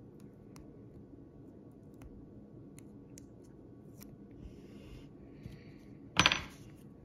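Metal tweezers clicking faintly as a nail sticker stencil is lifted off a fingernail, with one loud clatter about six seconds in.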